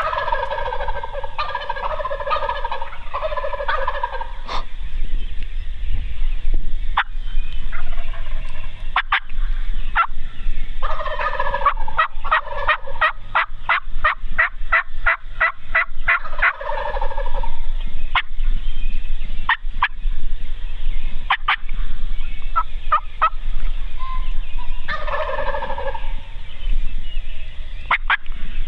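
Wild turkey toms gobbling from the roost: a burst of gobbles in the first few seconds, a long run of overlapping gobbles in the middle, and another gobble near the end, with short sharp calls scattered between.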